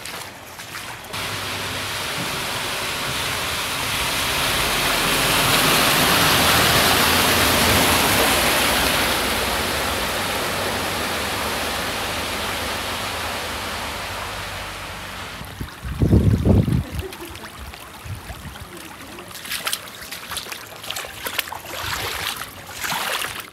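A van driving through floodwater: a long rushing swish of water thrown up by its tyres over a low engine hum, building and fading over about fifteen seconds. After that comes a brief loud low thump, and near the end footsteps splash through shallow floodwater.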